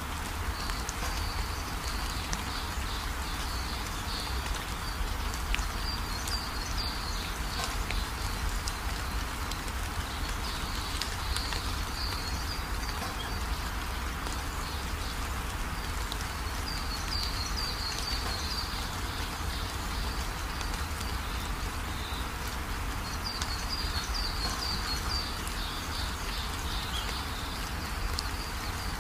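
Outdoor ambience: a bird sings bouts of short, high, quickly repeated notes every few seconds over a steady hiss and low rumble.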